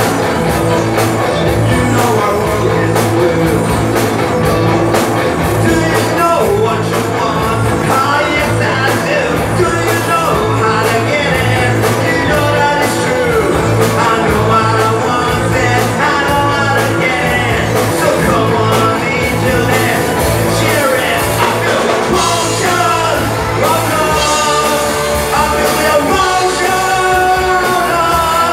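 Live new wave rock band playing, with electric guitars, bass, synthesizer and drums under a male lead vocal.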